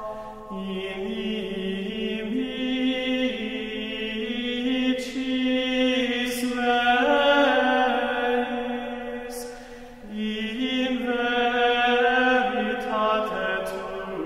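Slow chant, voices holding long notes that change pitch every few seconds, with a brief lull about ten seconds in.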